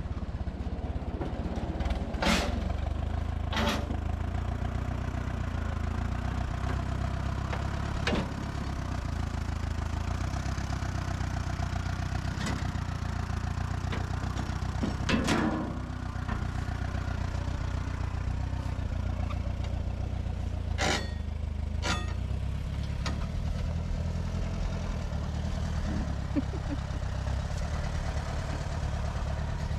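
Portable band sawmill's engine running steadily, with several sharp knocks and clicks scattered through.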